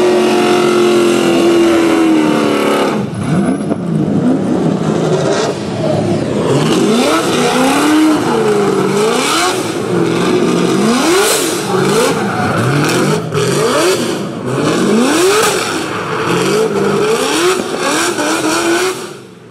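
Drift cars' engines revving hard. The pitch is held high and sags for the first few seconds, then rises and falls again and again with the throttle over a steady wash of tyre and exhaust noise.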